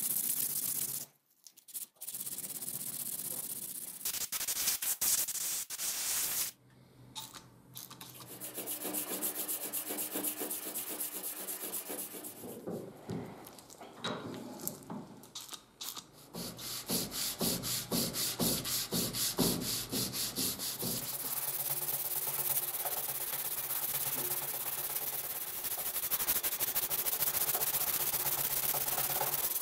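Steel sledgehammer head being hand-sanded with emery paper: quick back-and-forth strokes of abrasive rasping on metal. The sound drops out briefly twice in the first several seconds.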